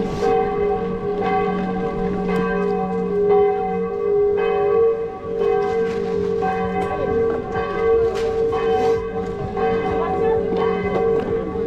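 Bells ringing: repeated strikes, about one a second, whose tones ring on and overlap.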